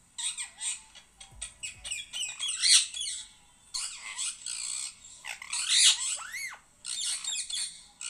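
Indian ringneck parakeet chattering: a run of short chirps and clicks broken by sharp squawks, the loudest about three and six seconds in, with a few arching whistled notes just after the second.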